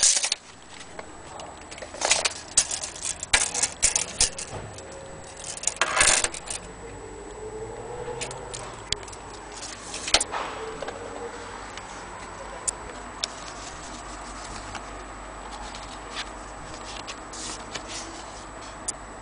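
Antique pendulum clock ticking, with louder clicks and knocks from handling in the first half and once about ten seconds in.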